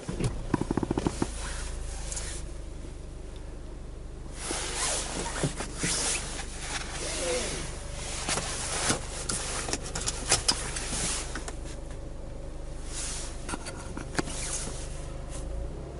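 Jaguar F-Pace's 2.0-litre four-cylinder diesel starting: a brief fast cranking chug, then a steady low idle, with scattered clicks and rustles over it.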